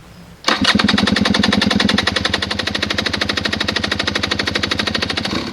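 Honda dirt bike engine catching about half a second in and running loud and fast with a rapid, even popping beat. It drops back to a quieter idle near the end.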